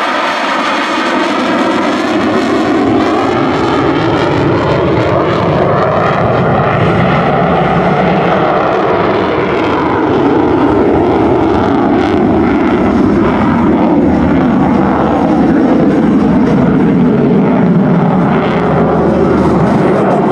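Lockheed Martin F-35A's single Pratt & Whitney F135 turbofan running in afterburner, a loud, steady jet roar as the fighter climbs away. Its tone sweeps slowly over the first several seconds.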